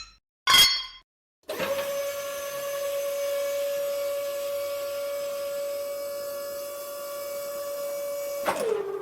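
A short hit with a brief ringing tail, then a motor-driven machine starts and runs steadily with a constant whine over a hiss for about seven seconds, before winding down with the pitch dropping and stopping.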